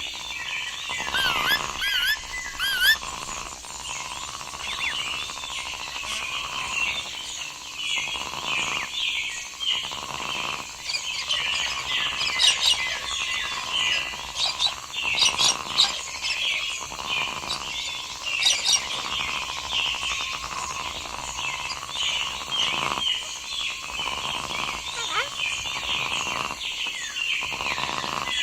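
Jungle ambience: many birds chirping and calling at once, a dense overlapping chorus of short chirps and whistles, with a few brief trills now and then.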